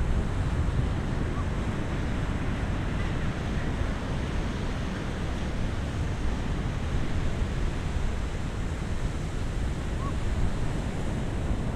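Steady rushing of wind over the microphone mixed with the wash of ocean surf, heaviest in the low end.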